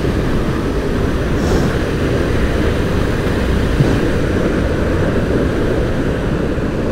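Water pouring through canal sluice gates makes a steady, loud roar. It is mixed with a motorcycle engine running at low speed.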